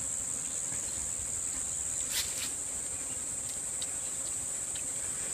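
Steady, high-pitched insect chorus droning without a break, with a couple of faint clicks about two seconds in.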